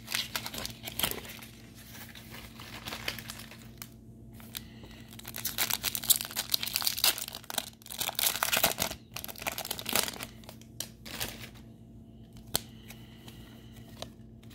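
Foil wrapper of a Pokémon trading card booster pack being torn open and crinkled as the cards are pulled out, in irregular rustling bursts that are busiest in the middle. Near the end the rustling dies down to the quieter sound of the cards being handled.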